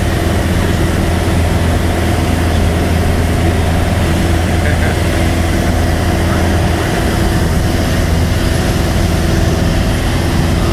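Single-engine light aircraft's piston engine and propeller running steadily in cruise flight, heard from inside the cabin as an even, low drone.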